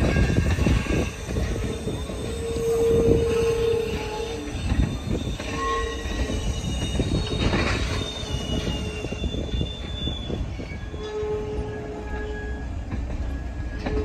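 Train of Caltrain gallery passenger cars rolling slowly into a rail yard, a steady low rumble with clicks from the wheels, and the steel wheels squealing on and off in high tones as they grind through the yard's curves.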